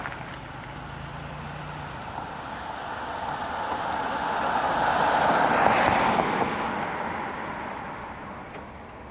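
A vehicle passing by, its noise swelling to a peak about six seconds in and then fading away.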